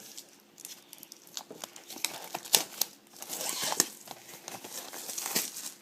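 Plastic shrink-wrap on a sealed trading-card hobby box being torn and crinkled as the box is opened, with many sharp crackles.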